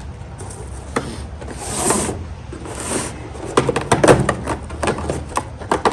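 Unboxing handling noise: two brief rustling swishes of packaging, then bursts of clicks and knocks from hard plastic parts being handled and set down.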